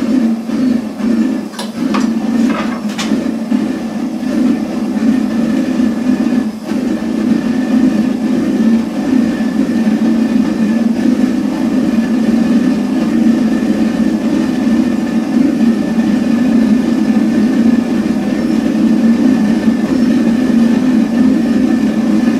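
Blower-fed gas forge burner running with a steady roar, together with the hum of its electric centrifugal blower, with a few crackles in the first few seconds. The forge is freshly lit and still cold, its blue flame not yet burning fully.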